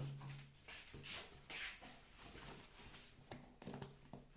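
Faint rustling and handling of a boxed food chopper: a few soft scuffs and brushes, strongest about a second and a second and a half in, over a low steady hum.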